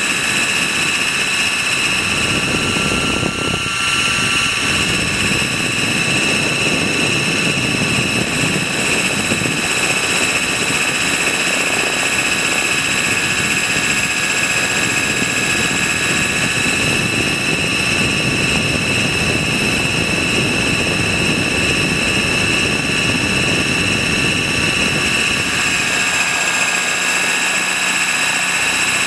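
Trex 600 RC helicopter running steadily: a high motor and gear whine over the rotor noise, heard up close from a camera mounted on its landing skid. The pitch shifts slightly a few seconds in and again near the end.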